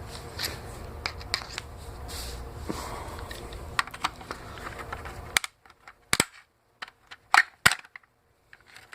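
Plastic clips and parts of a landline telephone clicking and snapping as they are pried loose. Scattered light clicks over a low hum for the first five seconds or so, then a few sharp snaps, the loudest about a second and a half from the end.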